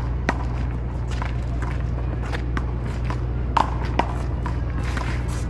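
Paddleball rally: sharp smacks of the ball off the paddles, wall and court at irregular intervals, the loudest pair about three and a half and four seconds in, over a steady low background hum.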